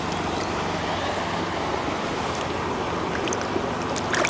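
Steady rushing noise of wind and lake water, with a few sharp clicks about four seconds in.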